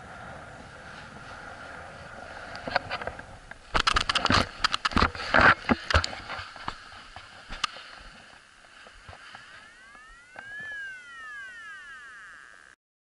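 A paraglider touching down on a gravel dirt track: airflow hissing on the helmet camera's microphone, then about four seconds in a rapid flurry of loud knocks and scrapes as the pilot's feet and harness hit the gravel, followed by a few scattered bumps. Near the end a short arching tone rises and falls a few times.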